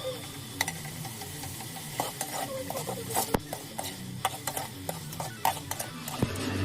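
Onions and tomatoes being stirred in hot oil in a pan: a utensil scrapes and clicks irregularly against the pan over a faint sizzle.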